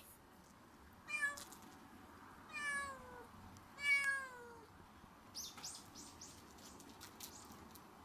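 Domestic cat meowing three times, each meow falling in pitch, the second and third longer and louder than the first.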